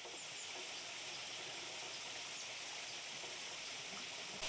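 Garden fountain water running and splashing in a steady, even hiss.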